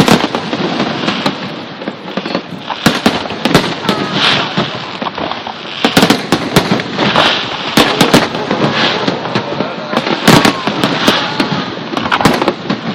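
Aerial fireworks bursting in a rapid barrage: many sharp bangs throughout, bunched in quick clusters, over a dense crackling haze.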